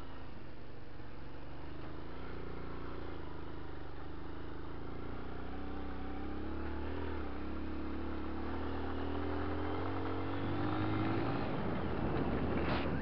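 Dirt bike engine running under way on a gravel track, heard from on board, its pitch climbing steadily through the middle of the stretch as the bike speeds up. A sharp knock comes near the end.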